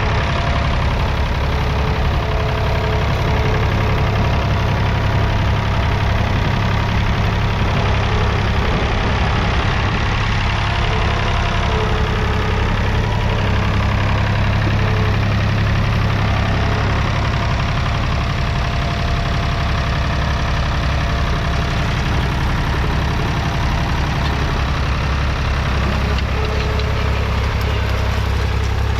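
David Brown 880 Selectamatic's 2.7-litre three-cylinder diesel engine running steadily at an even speed.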